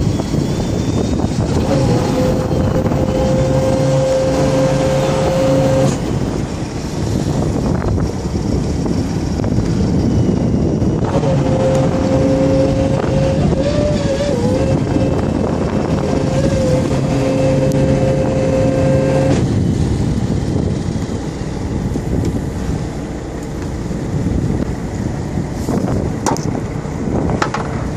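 An electric fishing reel's motor whines steadily as it winds in line over the steady rumble of the boat and wind. It runs twice: for about four seconds starting two seconds in, then for about eight seconds from about eleven seconds in, with a brief wavering of pitch partway through the second run as the load changes.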